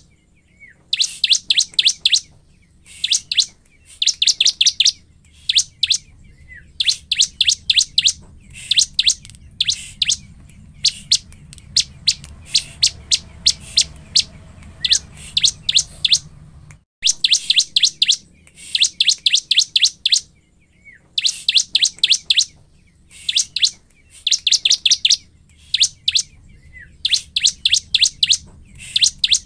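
Bar-winged prinia (ciblek) singing: repeated bursts of rapid, sharp, high chirps, several notes to a burst, with short gaps between bursts.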